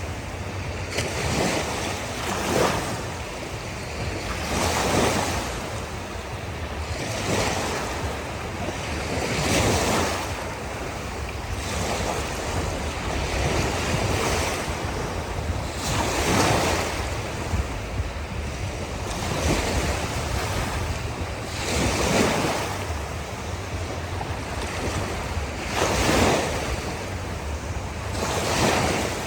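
Gentle ocean waves washing onto a beach, a surge of surf every two to three seconds over a steady low rumble.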